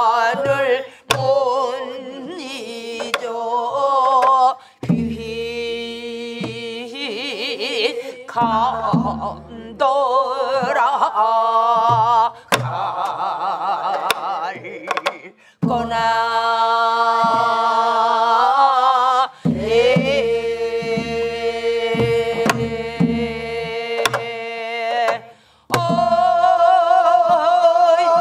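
A woman's voice leads a small group singing a southern Korean (Namdo) folk song, with long held notes and a wide wavering vibrato broken by short breaths. Buk barrel drums thud in slow, spaced strokes beneath the singing.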